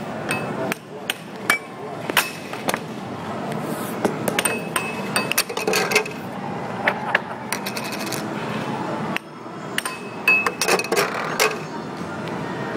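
Air hockey puck and mallets clacking: sharp, ringing hits as the puck is struck and ricochets off the table's rails, coming in quick runs of several hits with short lulls between, over a steady background din.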